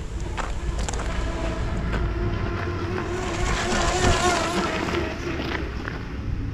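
Electric radio-controlled speedboat on a 4S LiPo battery running flat out: a high, wavering motor whine. It grows louder to a peak about four seconds in as the boat passes close, then fades as it moves off.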